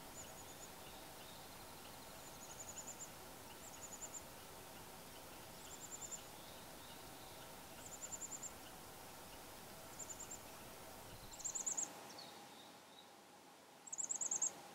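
A wild animal calling in short, high-pitched trills, each a quick run of clicks. The trills repeat about every two seconds, and the last two are the loudest. A faint steady hiss of open-air ambience lies underneath.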